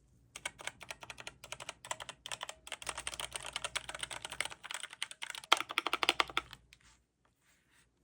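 Typing on a Redragon K530 60% mechanical keyboard with tactile brown switches: a rapid run of keystrokes that stops about a second and a half before the end.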